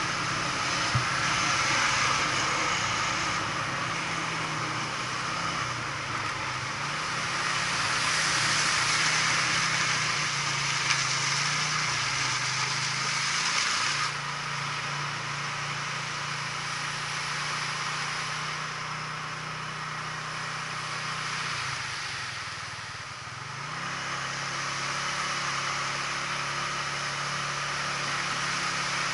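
A small engine running steadily under way, with a hum whose pitch shifts now and then and a strong hiss of wind and road noise over it. The engine eases off about three quarters of the way through, then picks up again.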